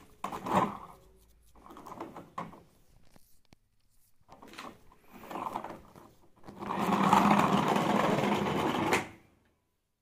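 Plastic toy jeep pushed by hand across a ridged wooden board, its wheels rolling and rattling: a few short runs, then one longer run of about two and a half seconds near the end.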